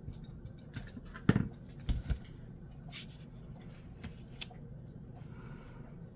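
Handling noise from small hard fidget sliders being picked up and set down: a few sharp clicks, the loudest about a second in, and two dull knocks at around two seconds.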